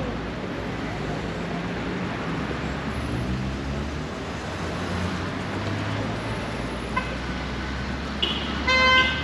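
City road traffic runs steadily with a low rumble. Near the end a car horn toots, briefly at first and then with a loud short honk.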